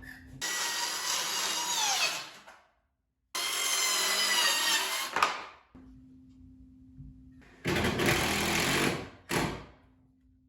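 Power tool run in three short bursts, its motor pitch falling as it winds down after the first two.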